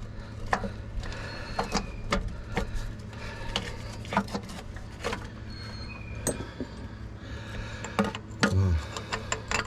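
Scattered, irregular metal clicks and clinks as a replacement starter and its long mounting bolt are handled and lined up under a pickup truck, over a steady low hum.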